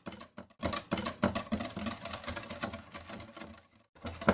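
Wire whisk beating milk and instant chantilly powder in a glass bowl: a fast, steady run of ticking strokes against the glass, pausing briefly about a third of a second in and again near the end.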